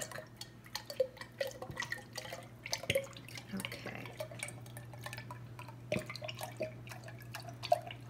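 Baby oil glugging and dripping from an upended bottle into a glass mason jar, in small irregular splashes and clicks. A steady low hum runs underneath.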